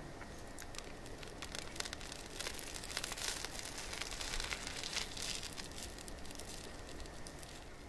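A fork cutting down through a layered crepe cake: soft crackling and tearing of the thin crepe layers and cream, thickest in the middle.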